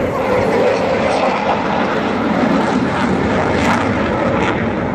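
Jet noise from a Eurofighter Typhoon's two EJ200 turbofans as it flies overhead: a loud, steady rushing.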